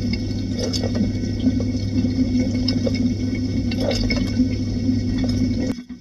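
Inside an IFB dishwasher during a quick wash: water spraying from the spray arms over the dishes, over the steady hum of the wash pump. The sound cuts off suddenly near the end.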